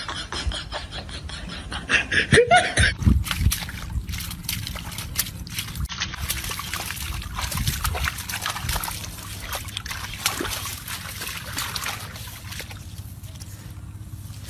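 A dog pawing and digging in wet mud, with irregular wet squelching and splashing. Before that, in the first few seconds, a regular clicking and a loud short rising sound about two seconds in.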